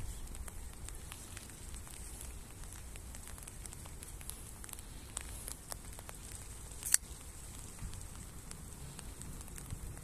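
The blade of a Twosun TS290 flipper folding knife snaps open and locks with one sharp click about seven seconds in. Faint, scattered light ticking and crackling run underneath.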